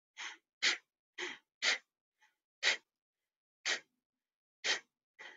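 Kapalabhati breathing: a woman's sharp, forceful exhalations through the nose, each a short puff of air. Four quick ones come about half a second apart, then slower ones about one a second.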